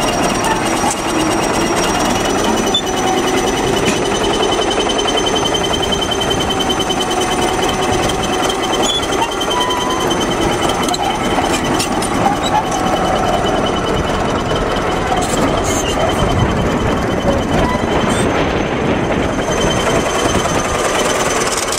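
Crawler bulldozer's diesel engine running close by, with a steady metallic rattle and a thin high whine over it.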